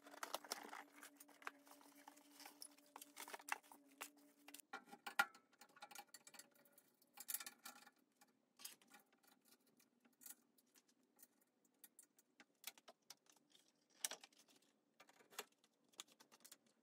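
Faint, scattered clicks and light taps of metal hardware and hand tools being handled while a monitor and keyboard mount is fitted to an aluminium extrusion frame, with a sharper knock about five seconds in. A faint steady hum runs underneath for the first few seconds.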